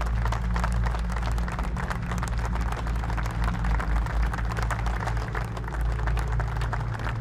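A crowd applauding: dense, continuous hand-clapping from many people, over a steady low hum.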